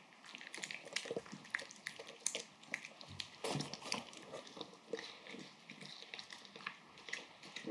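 A papillon eating wet food from a bowl: chewing with many short clicks and smacks, loudest around three and a half seconds in.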